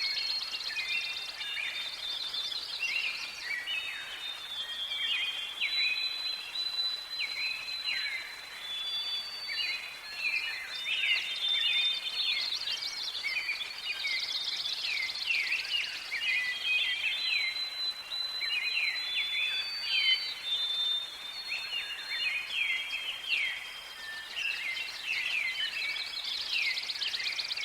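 Several birds singing and chirping at once: a dense chorus of short, overlapping high chirps and trills, with a few held high whistled notes.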